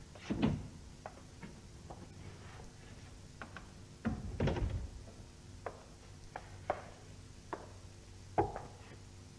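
Footsteps and light knocks on a studio-set floor, a dozen or so irregular taps with the loudest about half a second in and around four to five seconds in, over a faint steady hum.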